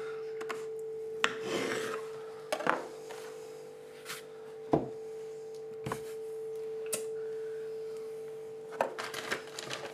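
Kitchen knife sawing through meatballs and knocking on a wooden cutting board, then a few scattered knocks and rubbing as the halves are pressed onto a pizza, over a steady hum.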